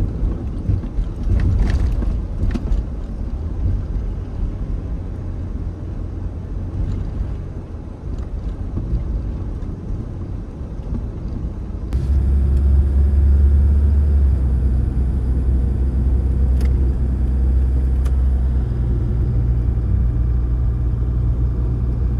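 A Toyota's engine and road noise heard from inside the cab while driving: a continuous low rumble with a few light clicks early on. About 12 seconds in it changes to a louder, steadier low hum.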